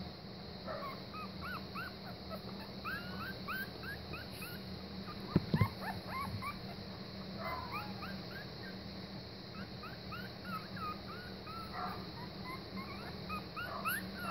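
Week-old German Pinscher puppies whimpering: many short, high squeaks that hook upward, some in quick runs. A single knock a little past halfway through is the loudest sound.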